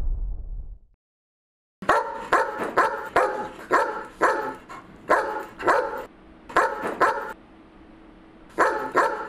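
A dog barking in a rapid run of short, sharp barks, often in quick pairs. The barks pause for about a second and a half, then start again near the end. A low rumble fades out in the first second, before the barking.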